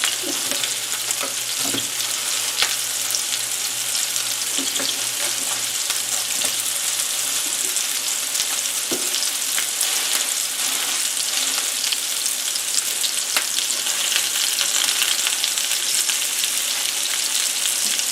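Ground-beef patties sizzling in hot olive oil in a frying pan, a steady hiss with fine crackling as they brown on the second side. A few light knocks sound over the sizzle, mostly in the first couple of seconds.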